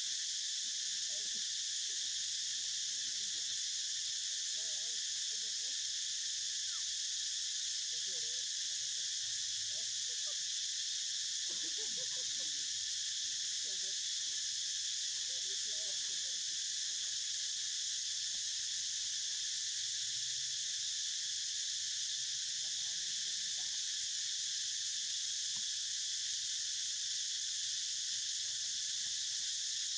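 Steady, unbroken high-pitched drone of an insect chorus.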